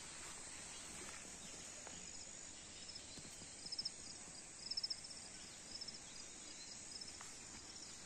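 Faint rural outdoor ambience: a steady high insect drone with several short, rapid chirping trills from insects, loudest around four and five seconds in.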